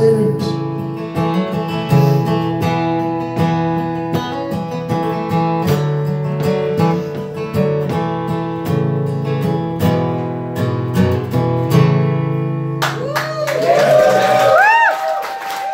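Acoustic guitar strummed through the closing chords of a song. About thirteen seconds in, the audience breaks into applause, cheers and whoops as the last chord rings out.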